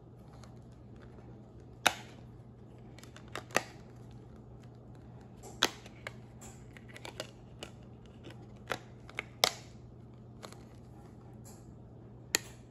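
Hard plastic clicks and snaps from a Blu-ray keepcase and its disc hubs as the discs are handled: about a dozen sharp, irregular clicks, some in quick pairs, over a faint steady low hum.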